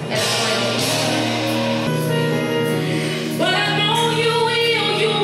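Background music: a song with a singing voice holding long notes over a steady bass, growing fuller about three and a half seconds in.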